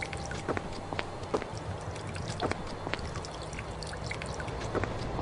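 Water trickling from a watering can into potted plants, with scattered irregular drips and small splashes over a steady hiss.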